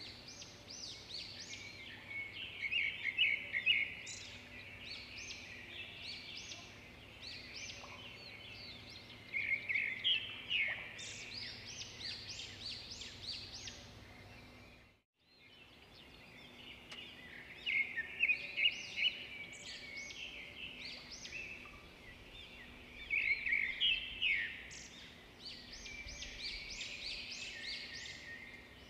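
Small songbirds chirping and trilling, many short calls coming in clusters, cutting out completely for about a second halfway through and then resuming.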